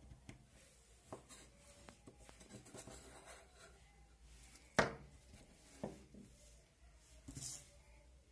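Faint handling noise of wires and a small solar panel being fitted to a plastic breadboard: light rubbing and scattered small clicks, with one sharper tap about five seconds in.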